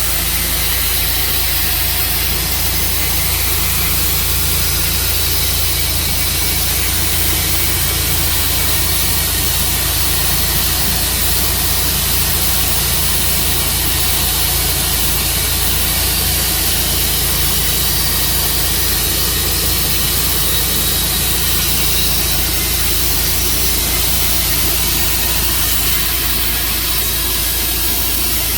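Tru Cut sawmill running steadily, sawing through a black walnut log: a constant low motor hum under an even hiss.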